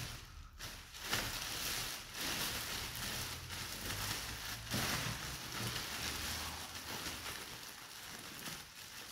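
Red plastic biohazard bag rustling as gloved hands gather and twist its neck closed, a continuous crinkly rustle with irregular crackles.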